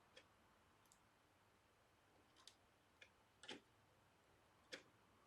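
Near silence broken by a handful of faint, irregular clicks and taps of small plastic toy parts being handled while a small bolt is fitted into the toy robot.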